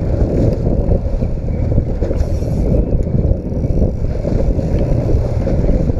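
Steady low rumble of wind buffeting the microphone on a small boat at sea, mixed with the boat's outboard motor running.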